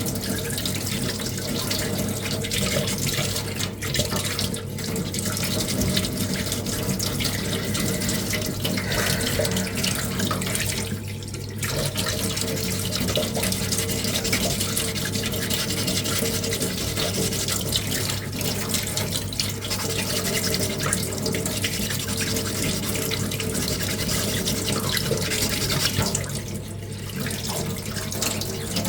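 Sandpaper rubbing back and forth on a small puttied 3D-printed armour ring, wet-sanded under a running tap that keeps the dust down: steady scrubbing strokes over running water.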